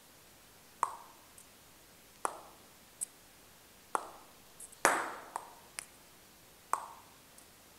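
Table tennis ball struck upward off the bat's rubber, a series of sharp single hits about a second apart with a few smaller taps between, the loudest about five seconds in. The hits mix flat contacts, whose woody 'clonk' marks little spin on the ball, with brushed contacts, whose sharper 'chick' marks plenty of spin.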